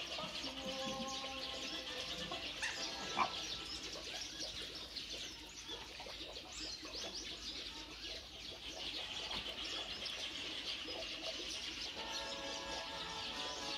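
Many birds chirping and calling together in a continuous dense chatter of short high notes, with one sharper, louder note about three seconds in.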